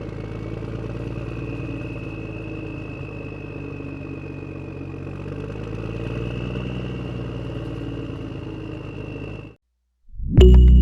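Small motor of a DIY miniature tractor running steadily with a high whine over a low hum, then cutting off abruptly about nine and a half seconds in. Music starts just before the end.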